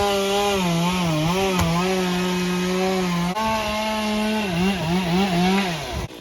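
Two-stroke chainsaw running at high revs while cutting a maple tree, its pitch dipping and recovering several times as the chain bites into the wood. It cuts off abruptly near the end.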